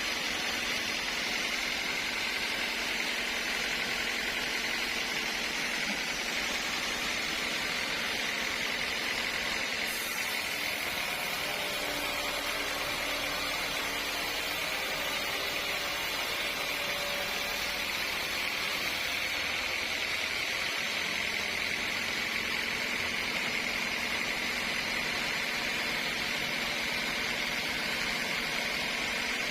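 Sawmill machinery running steadily, a continuous mechanical noise with a constant high-pitched whine.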